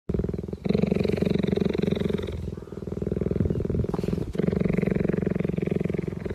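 Cheetah purring: a continuous, fast, rough pulsing that swells and eases, softer for a stretch in the middle.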